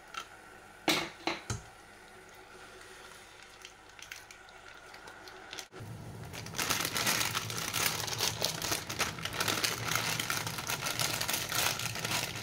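Plastic seasoning sachet crackling as it is cut open with a knife, a few sharp crinkles in the first two seconds. Then a pot of water boiling hard with a steady hiss, and a plastic bag of rice noodles crinkling as it is emptied into the pot.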